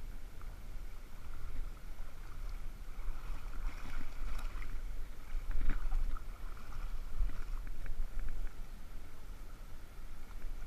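Shallow seawater sloshing and lapping around the angler, with wind rumbling on the microphone and a few small ticks and splashes.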